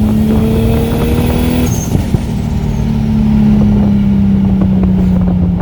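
2JZ-GTE inline-six in a swapped Nissan Cefiro pulling hard uphill in a low gear, its note climbing slightly, briefly breaking about two seconds in, then holding and slowly sinking.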